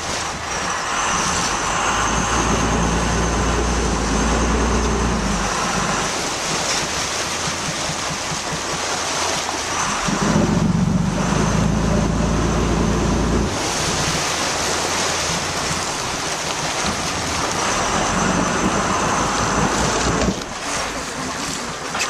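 Sea water rushing and splashing along the hull of a sport-fishing boat, with wind buffeting the microphone. The boat's engine hums underneath, swelling louder twice for a few seconds each.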